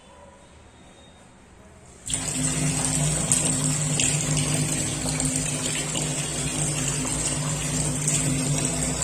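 Kitchen sink tap turned on about two seconds in, with water running steadily into the sink and a low steady hum underneath.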